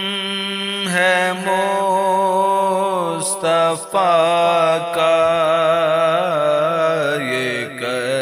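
A solo voice singing a naat, an Urdu devotional hymn, in long bending held notes over a steady low drone.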